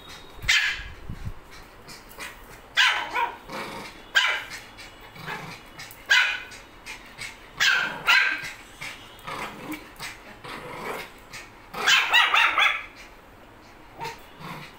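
Dogs barking in short bursts every second or two, with a quick run of barks about twelve seconds in.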